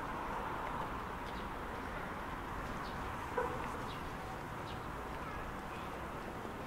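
Steady outdoor background rush with faint, scattered short bird chirps, and a single sharp click about three and a half seconds in.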